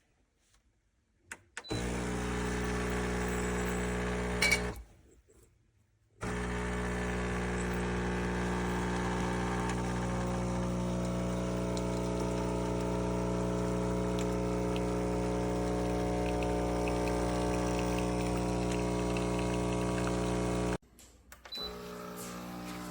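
CASABREWS 20-bar espresso machine's vibration pump humming steadily as it pushes water through, with liquid pouring. It runs for about three seconds, stops after a sharp click for over a second, then runs again for about fourteen seconds and cuts off abruptly.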